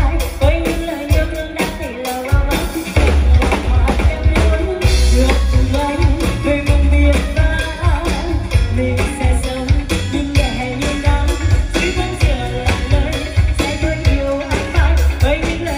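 A woman singing into a microphone with a live band of drum kit, electric bass and keyboard, heard through PA loudspeakers and picked up by a phone's microphone, with a steady beat of kick drum and cymbals.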